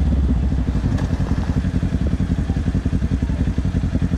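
Motorcycle engine running at low revs as the bike rolls slowly, with an even, rapid pulse from the exhaust.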